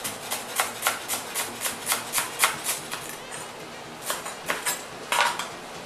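Chef's knife chopping a bunch of cilantro on a plastic cutting board: quick, even knocks about four a second, a short pause around three seconds in, then a few more chops.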